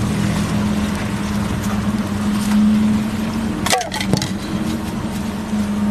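A steady engine-like hum over a hiss, with a short clatter of metal strikes and a brief squeal about four seconds in.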